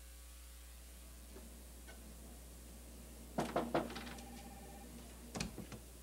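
A short ring, struck several times in quick succession with its tones hanging on for about a second, a little over three seconds in, then a dull thump about two seconds later, from a film soundtrack played over the hall's speakers, above a low steady hum.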